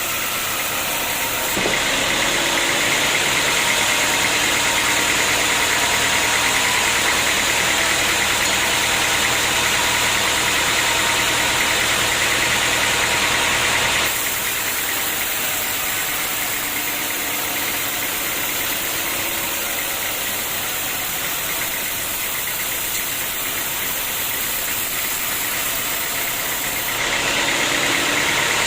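Sawmill machinery running steadily, a loud mechanical noise that steps up about a second and a half in, drops back about halfway through, and steps up again near the end.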